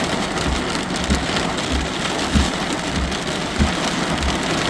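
Very heavy thunderstorm rain pouring down and drumming on a vehicle, a dense steady hiss, with low thumps repeating about every half second beneath it.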